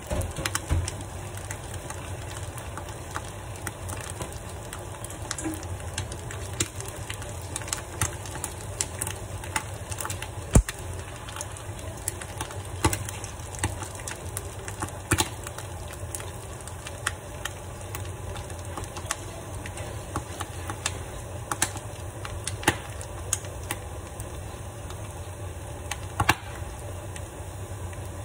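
Rice cake frying in oil in a non-stick pan, with scattered crackles and pops over a steady low hum.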